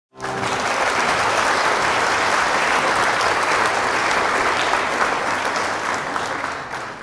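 Applause from many people clapping, starting abruptly and fading out near the end.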